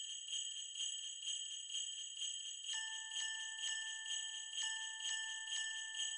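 Jingle bells shaken in a steady rhythm, about four shakes a second, joined about halfway by ringing bell tones.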